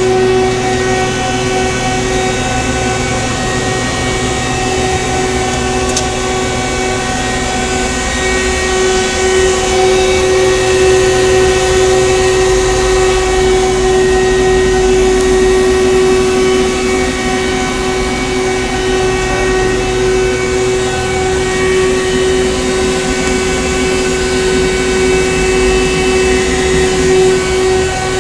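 Powered-up 1987 Mazak M5 lathe giving a steady electrical and mechanical hum, with one strong steady whine and several overtones, unchanging in pitch. There is a faint click about six seconds in.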